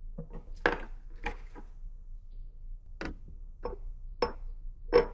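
Irregular light knocks and clicks of a plastic bucket, its lid and a siphon tube being handled as the tube is fitted.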